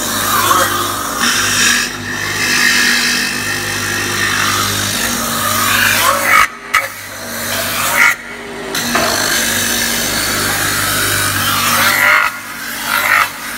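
CNC metal spinning machine forming a steel blank. The forming roller presses and rubs against the spinning steel with a steady, harsh scraping over a low hum from the machine. The sound breaks off briefly twice around the middle.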